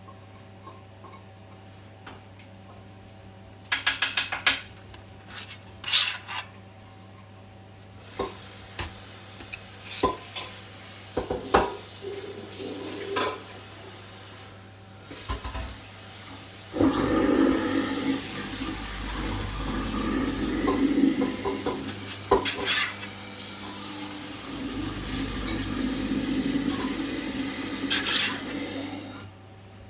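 Carving knife sawing through cooked pork and scraping and clinking on a stainless steel tray, with a carving fork holding the meat: scattered clicks and scrapes at first, then longer stretches of steady sawing in the second half. A steady low hum runs underneath.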